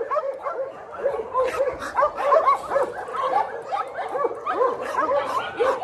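A pack of small dogs yipping and barking over one another, many short high yaps a second.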